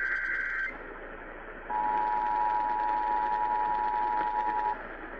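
Emergency Alert System broadcast heard over AM radio: a digital SAME header data burst with a buzzy two-pitch sound ends under a second in, then after a second of radio hiss the EAS two-tone attention signal sounds steadily for about three seconds.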